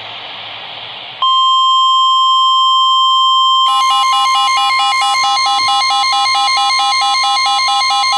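Weather radio static, then about a second in NOAA Weather Radio's steady 1050 Hz warning alarm tone comes on. A couple of seconds later a rapid, pulsing beep joins the tone. The alarm tone signals that a warning is about to be broadcast.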